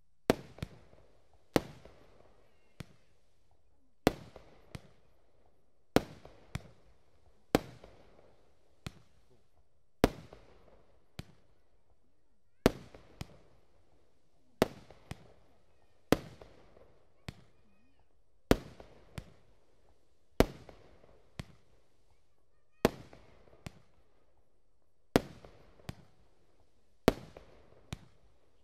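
Dragonball X 19-shot barrage firework cake firing shot after shot, a sharp bang about every two seconds, each usually followed within a second by a quieter pop.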